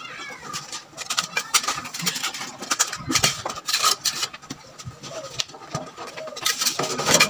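Frequent, irregular knocks and clinks of split river stones and a mason's trowel as a stone foundation is laid in mortar.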